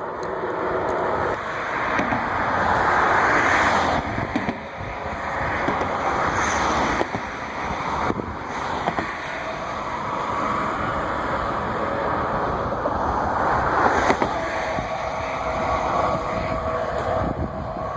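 Road traffic: vehicles passing on a busy road, tyre and engine noise swelling and fading, loudest about three seconds in and again near fourteen seconds.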